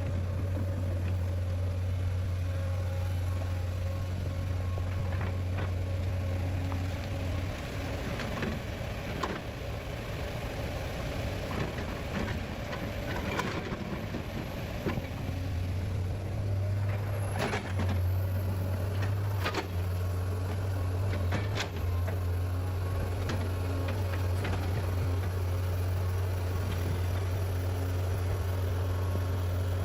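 Heavy log loader's engine running steadily, with a run of sharp knocks and cracks midway through.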